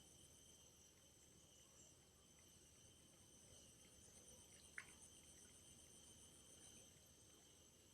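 Faint steady chorus of insects, a few high trilling tones running on, with one sharp click about five seconds in.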